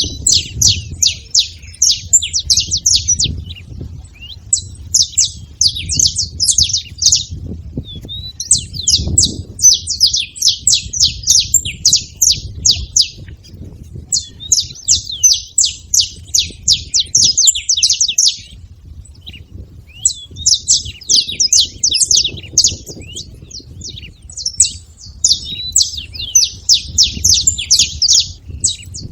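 Saffron finches singing: bouts of rapid, high chirping notes a few seconds long, broken by short pauses, repeated about six times, over a low rumble.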